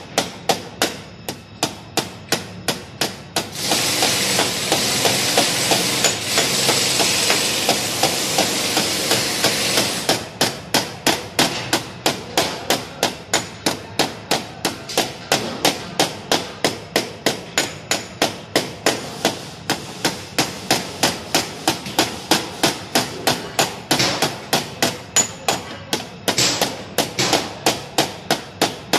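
Small hammer tapping a tap-down punch against a dented car body panel during paintless dent repair, with about three quick metallic taps a second. A steady hiss comes in about four seconds in and stops about six seconds later.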